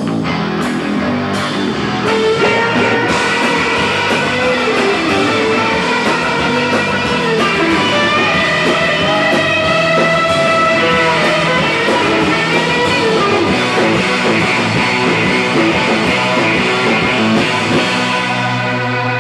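Live instrumental surf-rock band playing: electric guitars and bass over drums, with the lead line sliding up and down in pitch through the middle.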